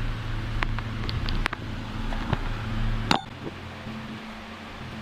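Wrench on the crankshaft of a Ford V6 engine being turned by hand toward top dead center, giving a few scattered metallic clicks over a steady mechanical hum. The hum drops away with a sharp click about three seconds in.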